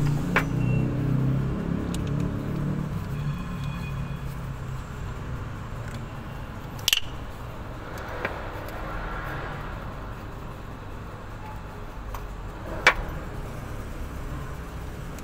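A few sharp metallic clicks and taps of a hand tool working on the steering pump's fittings, over a low vehicle rumble that fades over the first few seconds.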